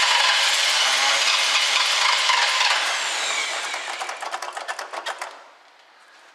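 1967 Chevrolet Camaro V8 firing on gasoline poured into the carburettor: it runs rough for a few seconds, then sputters in quick uneven pulses and dies about five seconds in. It is running only on the poured-in fuel, which the owner takes to mean not enough gas is getting in to keep it running.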